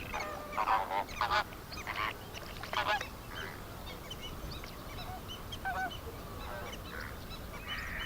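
A flock of greater flamingos calling with goose-like honks. The calls come in quick overlapping clusters during the first three seconds, then thin out to scattered, fainter honks.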